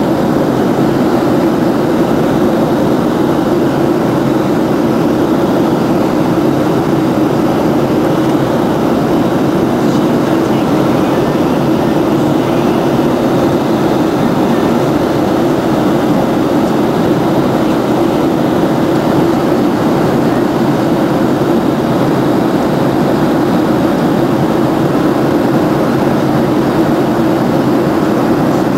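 Cabin noise of a Boeing 737-700 climbing just after takeoff, its CFM56-7B engines at climb thrust: a loud, even rumble that holds steady without change, heard from inside the cabin.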